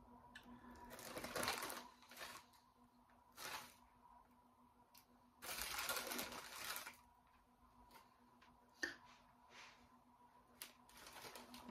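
Plastic Cheetos snack bag crinkling and rustling as a hand rummages inside it, in several short spells, the longest about halfway through.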